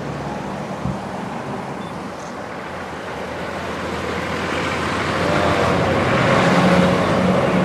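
Road traffic: a vehicle approaching and passing close by, growing louder over the last few seconds, with a low steady engine hum at its loudest.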